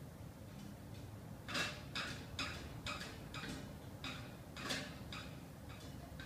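A pitbull chewing raw meat in a stainless steel bowl: a run of short, crunchy chews about two to three a second, starting about a second and a half in.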